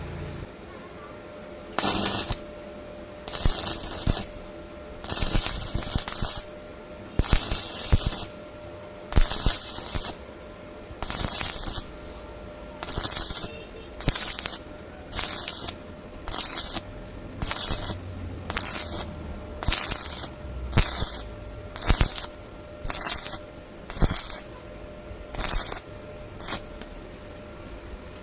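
Welding arc crackling and hissing in short, evenly spaced bursts, about eighteen of them, as a bead is laid down in stitch-like pulses over a faint steady hum.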